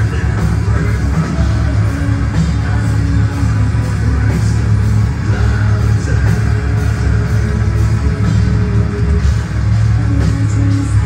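Gothic metal band playing live at full volume, with distorted guitars, bass and drums, heard from within the crowd and heavy in the bass.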